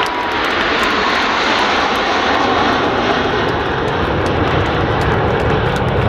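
Formation of Aermacchi MB-339 jets passing low overhead, their turbojet engines a loud, steady roar. A deep rumble grows stronger about four seconds in.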